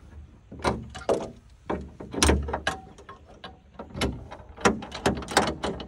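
Metal turnbuckle and snap hook clinking and clicking against the rack's mount tab and the bed tie-down as they are hooked up and handled: an irregular run of sharp clicks and knocks, with one heavier thump a little over two seconds in.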